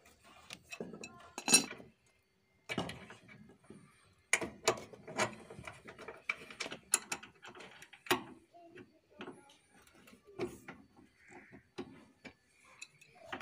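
Adjustable wrench clicking and clinking against a bolt on a car's radiator support as the bolt is worked loose and handled: irregular sharp metal taps and knocks.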